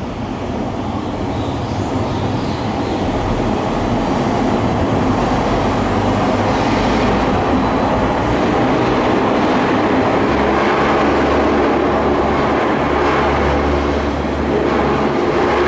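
Hakone Tozan cable car (funicular) departing uphill: a steady running noise from the car and its haul cable that builds over the first few seconds and then holds. A deeper low hum joins about ten seconds in.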